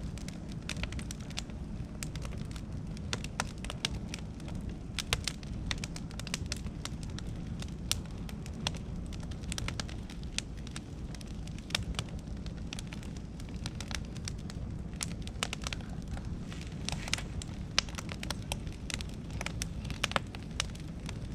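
Beech and oak wood fire crackling, with frequent irregular sharp pops over a steady low rumble.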